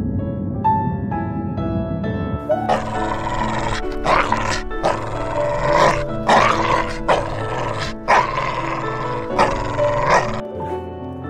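A dog barking repeatedly, about once a second, over gentle piano background music.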